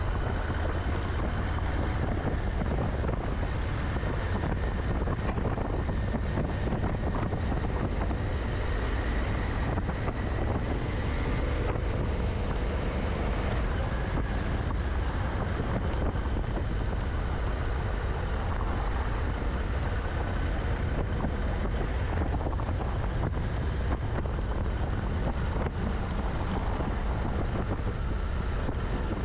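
Honda Africa Twin's parallel-twin engine running steadily at an easy pace, mixed with wind rumbling on the microphone.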